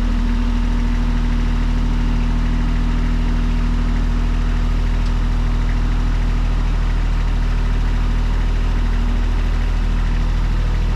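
Engine idling steadily, with a low, even hum.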